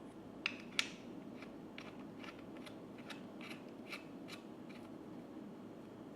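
A run of about a dozen sharp clicks, two or three a second, the two loudest near the start, over a steady low background hum.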